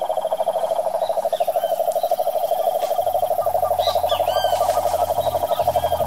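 Cane toad (Rhinella marina) giving a long, continuous low trill of rapid even pulses, the advertisement call of a breeding male. Faint bird chirps sound over it in the middle.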